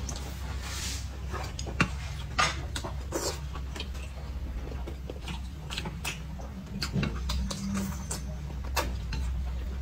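Noodles being slurped and eaten with chopsticks: irregular short slurps, with a few sharp clicks of chopsticks against a metal bowl.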